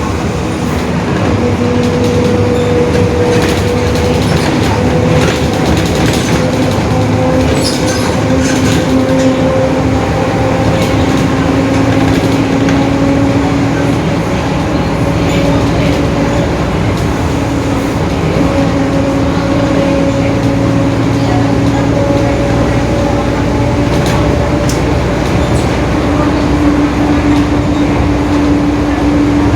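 Inside a Mercedes-Benz OF-1721 city bus under way: engine and road noise with the differential groaning, a steady whine that drifts slowly up and down in pitch with road speed. The noisy differential is the fault the recording flags. A few sharp rattles come in the first third.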